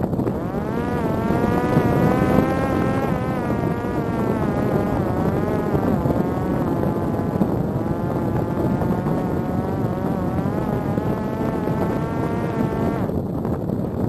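Parrot Disco fixed-wing drone in flight, heard from its onboard camera: the electric motor and pusher propeller whine, wavering in pitch as the throttle changes, over heavy wind rush. About 13 seconds in the whine cuts out, leaving only the rushing wind as the drone dives with the motor off.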